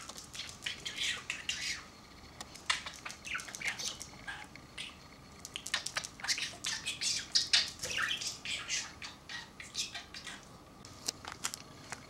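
Pet budgerigar chirping and chattering in quick, short bursts, busiest in the first two seconds and again from about six to nine seconds in, thinning out near the end.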